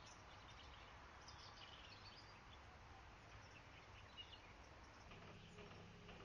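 Faint outdoor ambience with a few soft, high bird chirps. About five seconds in, a low engine hum starts up, from a small farm vehicle pulling out of a shed.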